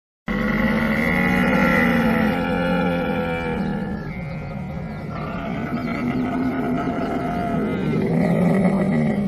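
Camel calling: a long, deep, pitched vocalization that begins suddenly, eases a little in the middle and swells again near the end.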